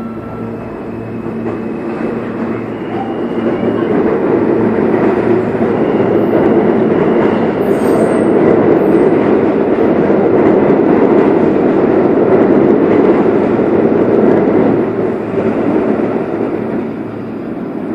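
New York City Subway R160 train departing the station: the traction motors give rising tones as it starts off, then the wheels and cars rumble past steadily and loudly as it gathers speed. The noise fades near the end as the train pulls away into the tunnel.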